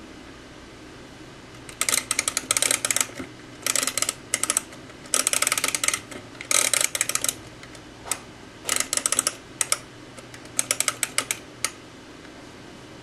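Flip-clock number flaps of a Pioneer PP-215A digital timer being run forward by its time-adjust knob. The flaps clatter over in rapid bursts of sharp clicks, several bursts in a row, starting about two seconds in and stopping near the end.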